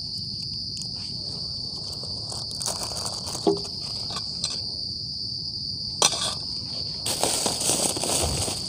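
Steady, high-pitched chirring of night insects, with a few small clicks as camping gear is handled. From about seven seconds in, a plastic bag crinkles as it is rummaged.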